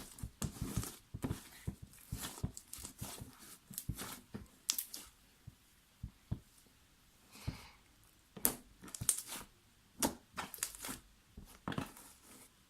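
Slime being stretched and squished by hand, giving a run of small crackling clicks and wet pops as trapped air bubbles burst. The clicks come thick and fast for the first few seconds, then thin out into a handful of sharper single pops.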